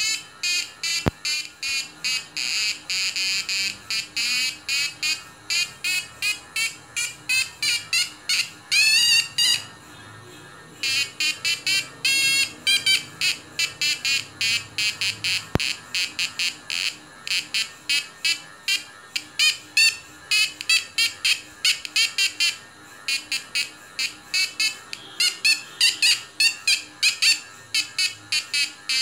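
Homemade Sziklai-pair transistor audio oscillator (resistance 'audio-meter') squawking through a small speaker as its wire probes touch a line of saliva: a fast string of short, high chirps, about three a second, each bending in pitch as the resistance across the probes changes. The chirping stops for about a second, roughly ten seconds in.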